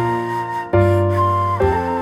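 Background music: a slow flute melody over soft piano and bass chords.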